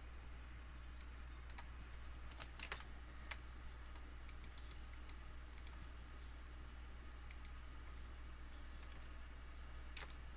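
Computer keyboard and mouse clicks, scattered and in quick little clusters, over a faint steady low hum.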